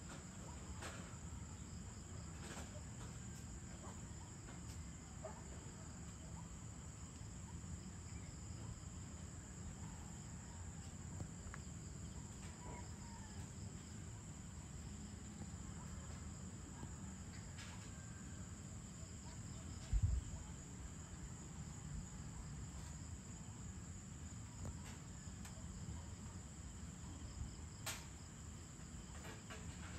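Faint, steady high-pitched insect chirring at dusk over a low rumble, with scattered faint clicks and one brief low thump about two-thirds of the way in.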